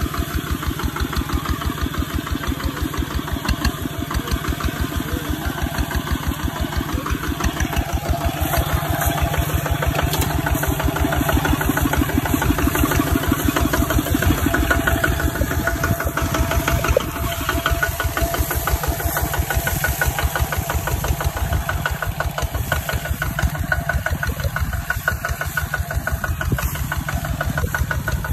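Single-cylinder diesel engine of a two-wheel walking tractor running steadily, with a fast, even pulsing beat.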